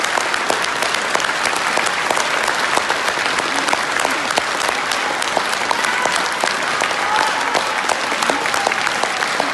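Theatre audience applauding steadily after an opera duet, a dense patter of clapping, with a few faint voices calling out from the crowd in the second half.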